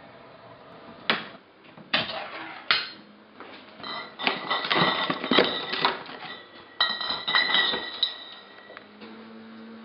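A ring-pull tin can being opened: sharp metallic clicks as the tab is lifted, then the metal lid scraping and tearing as it is peeled back. More metallic scraping and clinks follow near the end.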